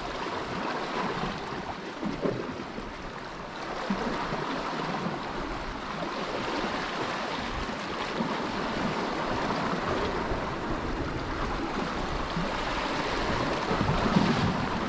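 Sea washing steadily against the rocks, with wind rumbling on the microphone.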